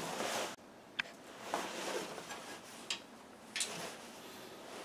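A few light, sharp clicks and taps of hand tools and small engine parts being handled during reassembly, spaced a second or two apart.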